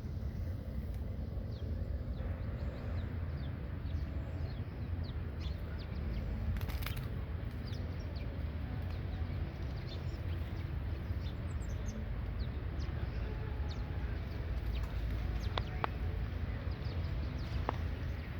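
Birds calling, a scatter of short chirps and clucks, over a steady low rumble.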